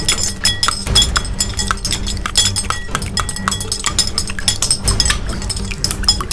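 Rapid, continuous clinking of small hard objects such as glass or crockery, over a low steady hum.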